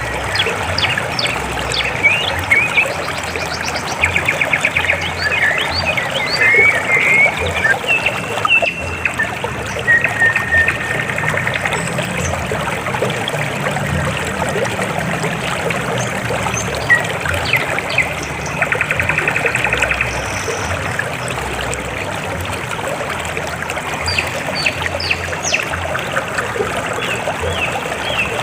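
River water flowing and trickling, a steady rushing with birds chirping over it, including a couple of rapid trills.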